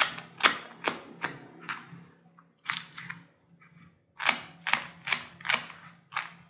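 Kitchen knife chopping celery on a plastic cutting board: quick sharp chops, about two to three a second, with a pause of about a second near the middle.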